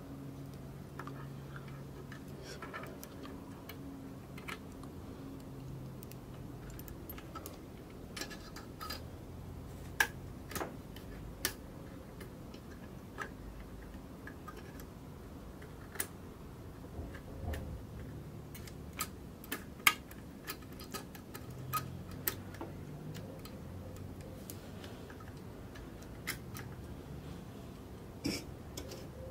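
Small, sharp metal clicks and taps, scattered irregularly, as hands work a wire clip against the sheet-metal end bracket of a Ricoh IM C copier fuser unit.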